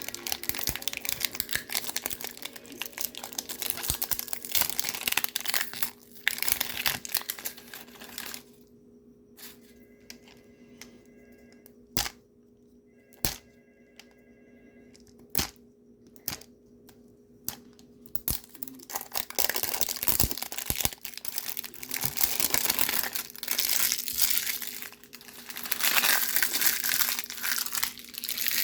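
Plastic toy packaging being torn open and crinkled by hand, in two long stretches of rustling with a quieter pause in between that holds a few sharp clicks.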